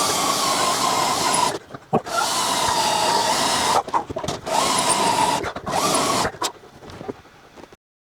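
Electric drill running in bursts of one to two seconds with short stops between, its motor whine steady in pitch. The sound cuts off abruptly near the end.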